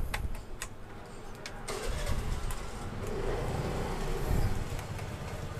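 A few light clicks as a wire is fitted into a contactor terminal, then from about two seconds in a motor vehicle engine running steadily, swelling a little past the middle.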